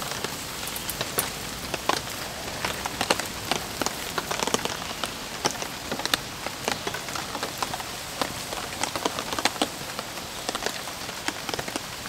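Rain falling steadily, with many sharp, irregular drop hits.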